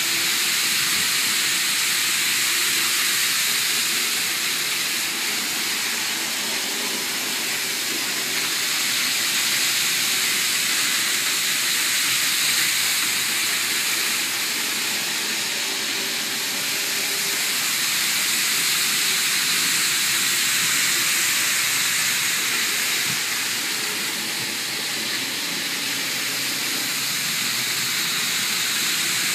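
N-scale model shinkansen trains running on Kato Unitrack: a steady hissing whir of small motors and wheels on the rails, gently swelling and fading as the trains come and go.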